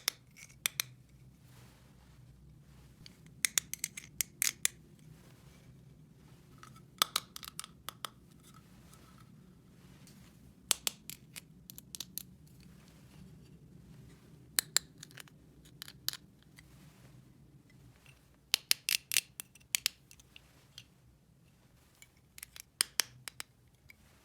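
Small toy pieces being handled: clusters of sharp clicks and taps every few seconds, over a faint steady low hum.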